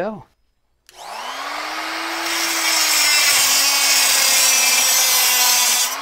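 Electric cutoff tool spinning up about a second in, its motor whine rising, then its abrasive wheel grinding through a thin sheet-metal PCI slot cover plate held in a vise: a loud, hissing cut over the steady motor whine. Just before the end the cut stops and the motor starts to wind down.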